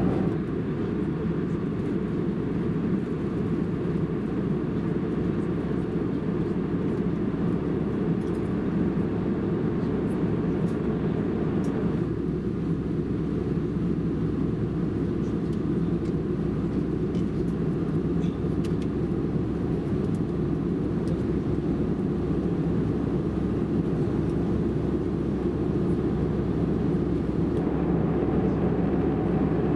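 Steady cabin noise of an Airbus A319 airliner in cruise, a deep even rush of engine and airflow heard from a window seat. It shifts slightly in tone about twelve seconds in and again near the end.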